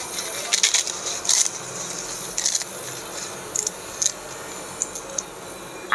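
Crisp papads being snapped and crumbled by hand, with a quick run of sharp cracks over the first second and a half, then scattered crackles.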